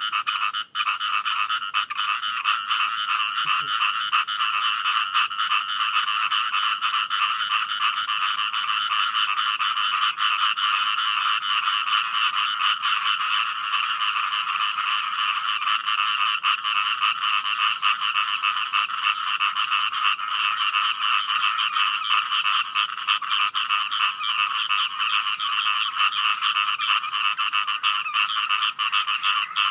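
Chorus of many frogs calling at once: a steady, dense mass of rapid croaks that goes on without a break.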